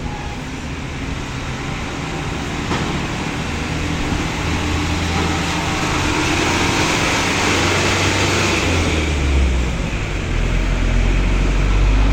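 Motor vehicles running and passing on the road, a steady engine drone under the noise of traffic, with a deeper and louder engine rumble building near the end.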